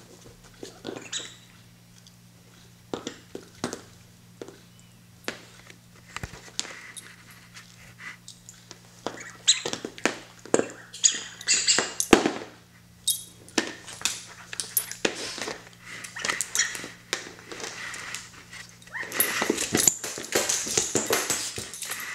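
Two small dogs play-fighting over a plush toy in a fabric dog bed: rustling fabric, scrabbling paws and irregular quick knocks, getting busier in the second half.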